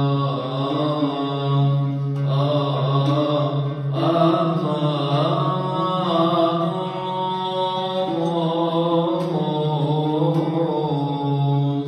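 A church cantor's male voice chanting a slow hymn in long, ornamented held notes, with an oud accompanying him.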